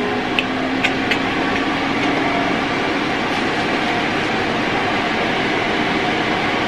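Hooded hair dryer running steadily on its medium setting, its fan blowing with an even rush of air. A few light clicks come in the first second or so, and a low hum fades out over the first few seconds.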